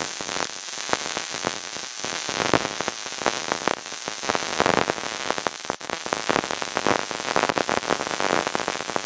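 Wire-feed welding arc running a bead on a joint of steel square tubing: a steady, dense crackling sizzle, broken off for a moment about two-thirds of the way through.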